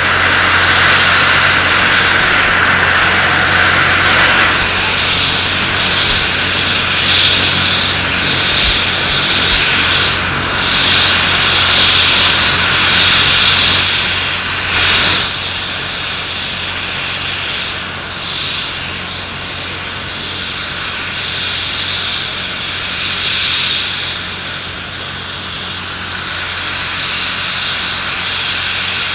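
Helicopter running on a helipad: a steady turbine whine over rotor noise, louder in the first half and easing somewhat after the middle.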